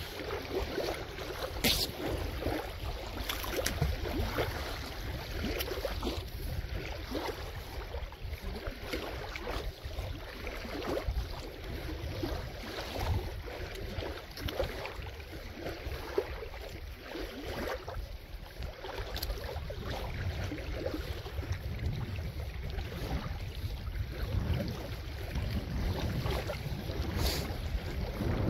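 Wind rumbling on the microphone, with scattered light taps and rustling.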